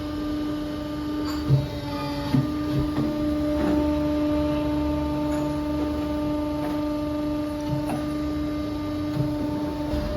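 Uniflex S10i hydraulic hose crimper's electric pump motor running with a steady hum, with a few light clicks.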